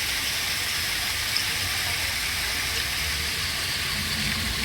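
Rushing water making a steady, even hiss with a low rumble underneath.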